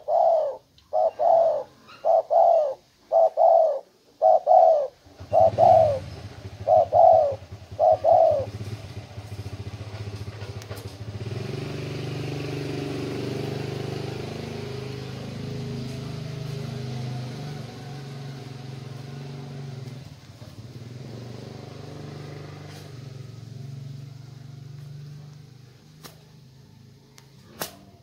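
Spotted dove cooing: about a dozen short, loud coos in a quick run over the first eight seconds, the greeting call of a tame caged dove. From about five seconds in, a low engine drone sets in underneath and fades near the end.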